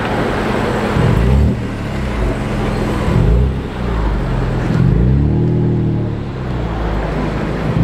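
BMW M4's twin-turbo straight-six revved in blips while rolling away slowly, the engine note rising and falling three times, the last rev longer, about five seconds in.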